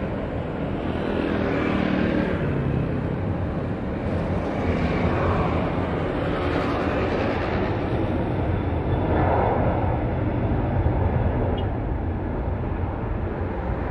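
Boeing 737 jet airliner's twin engines running at takeoff power during the takeoff roll: a steady, loud jet noise as the aircraft accelerates down the runway past the listener.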